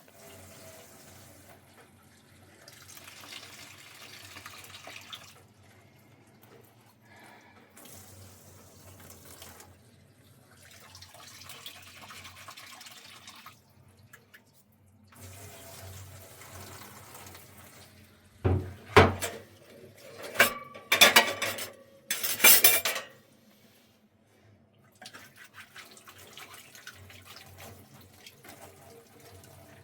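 Water pouring and splashing in several short spells, broken by a loud clatter of knocks and clanks about two thirds of the way through, one with a brief ringing tone.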